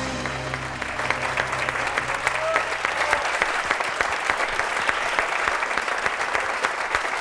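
Studio audience applauding, a dense steady clapping. The band's last chord dies away under it during the first three seconds.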